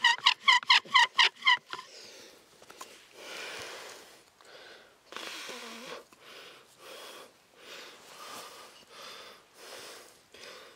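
Bow drill spindle squeaking in the wooden fireboard with each stroke of the bow, about four or five strokes a second, stopping about two seconds in. Then slow, heavy breathing.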